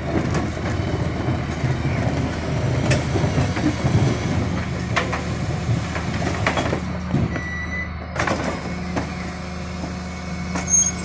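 Refuse truck's diesel engine running steadily while its Terberg hydraulic bin lifter raises a wheelie bin, tips it into the Heil Powerlink hopper and lowers it again. Several sharp clanks and bangs of the plastic bin against the lifter and hopper are heard over the engine.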